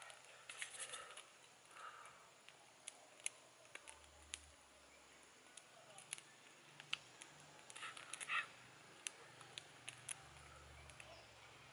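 Quiet scattered clicks and crackles from a small wood campfire and from sticks being handled at the fire, with two short louder sounds about a second in and just after eight seconds.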